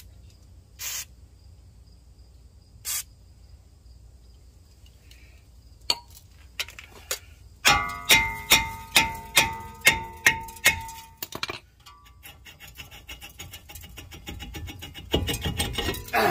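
Aerosol penetrating oil sprayed in three short hissing bursts onto the rusty rear hub of a 2014 Chevy Equinox, then about ten sharp ringing metal strikes on the brake rotor, roughly three a second, to break it loose. Scraping and rattling follow, louder near the end, as the rotor is worked off the hub.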